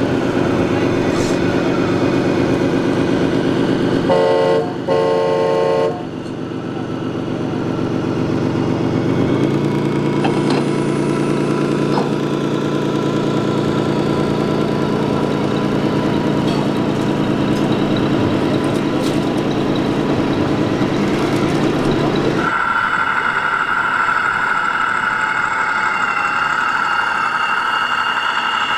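RC Scania V8 truck's sound module playing a steady V8 diesel engine note through its speaker. There are two short horn blasts about four to six seconds in, and the engine note rises a little about nine seconds in. Near the end a different, higher-pitched drone takes over.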